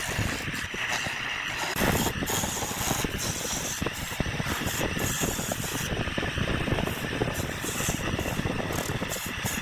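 A tool cutting wood spinning on a wood lathe, a steady hiss with dense rapid crackling from the shavings.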